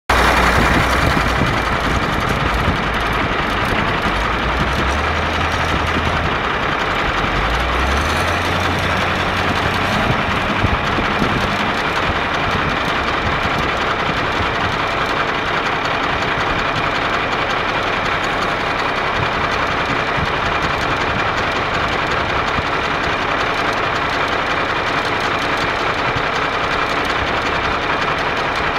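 Heavy diesel engines running: a wheel loader working beside an idling truck. The low engine note shifts in pitch between about four and ten seconds in, then settles into a steady run.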